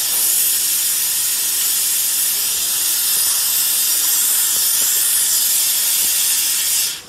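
Steady, loud hiss of compressed air from a CNC plasma cutting machine, cutting off suddenly near the end.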